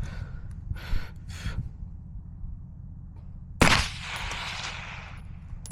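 A single rifle shot about three and a half seconds in, its report rolling on and fading over more than a second. Another sharp bang comes right at the end.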